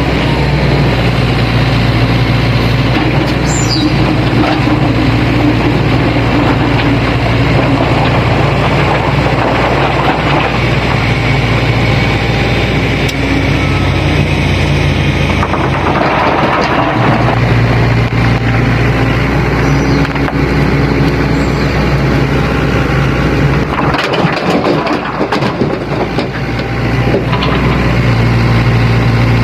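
Diesel engine of a Sany SY75C mini excavator running steadily under load as it loads rock. A noisy stretch of clatter and scraping comes midway and again later on.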